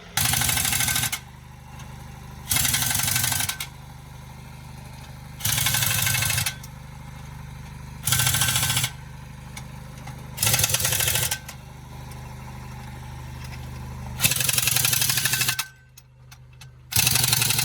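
Air impact wrench run in short bursts of about a second each, seven times, spinning wheel nuts during a tire change. A steady engine idles underneath.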